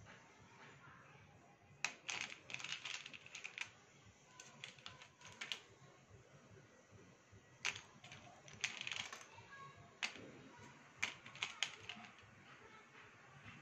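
Slate pencil sticks clicking and clattering against one another and a clear plastic bowl as a hand picks through them. The clicks come in short clusters with pauses between.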